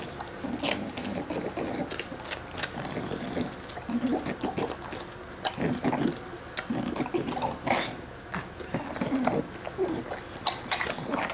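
British bulldog chewing pork crackling: wet, slobbery mouth sounds with several sharp crunches at irregular moments.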